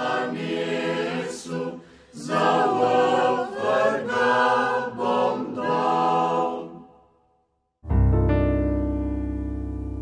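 Background music: a choir singing, fading out about seven seconds in. After a brief silence, a single piano chord is struck and rings on, slowly dying away.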